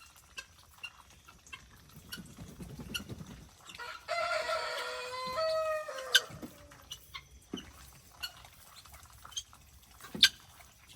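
A rooster crowing once, a call of about two seconds that ends on a falling note, with a few sharp clicks and taps around it.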